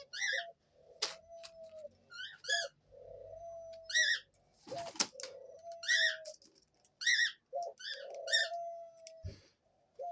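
Pet dove cooing over and over, each low coo ending in a held note, with short high chirping notes between the coos.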